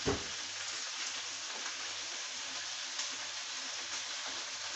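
Butterflied prawns sizzling steadily in a frying pan with garlic and peri-peri sauce. There is a knock right at the start and a light tick about three seconds in.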